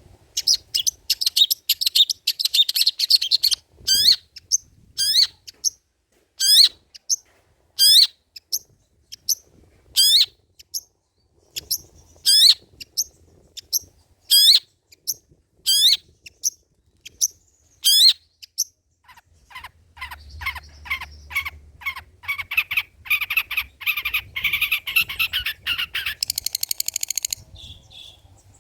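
Long-tailed shrike (cendet) singing. It opens with a dense chatter, then repeats a sharp sweeping whistled note about every one and a half to two seconds, and near the end breaks into a fast, rapid run of chattering notes.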